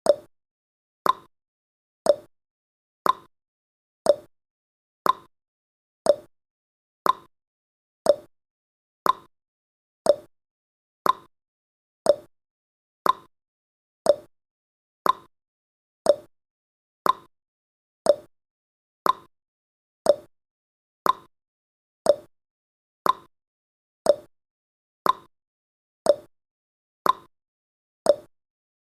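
Clock-tick sound effect of a countdown timer, one short, sharp tick every second, alternating higher and lower like a tick-tock.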